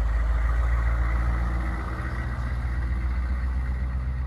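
Hummer H1 engine running at low, steady revs as the truck crawls off through snow, a deep rumble that grows slightly fainter as it moves away.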